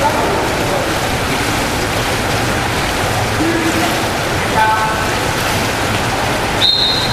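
Water splashing from water polo players swimming and fighting for the ball, with a couple of brief shouts, and a short, shrill referee's whistle blast near the end.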